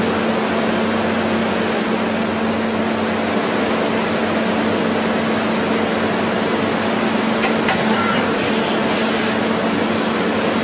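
A CNC machine tool running steadily: a constant hiss with a steady hum underneath, and a brief sharper hiss about eight and a half seconds in.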